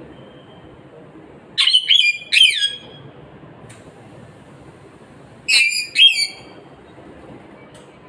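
Pet green parakeet calling: a quick group of three falling notes about two seconds in, then a pair of falling notes near six seconds.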